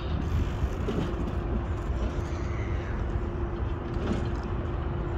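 Outdoor city street noise: a low, uneven rumble with a steady droning hum, like traffic.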